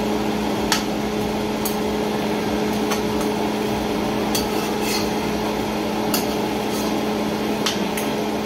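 Metal spoon stirring and basting hassa curry in a nonstick wok, giving about eight light clinks against the pan, spread every second or so, over a steady hum and the hiss of the simmering pot.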